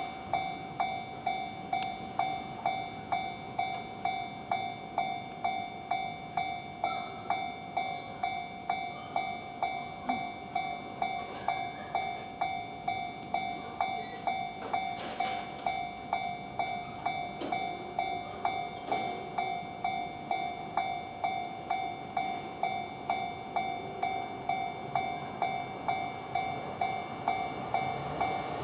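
Japanese level-crossing warning bell ringing steadily, a single-pitched tone struck about twice a second. Near the end, the rumble of an approaching train grows underneath it.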